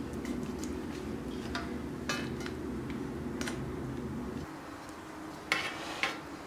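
Light clicks and soft taps of stuffed dried red peppers being laid into a stainless steel pot and hands brushing its metal sides, with a couple of sharper clicks near the end. A low background hum underneath stops suddenly about four and a half seconds in.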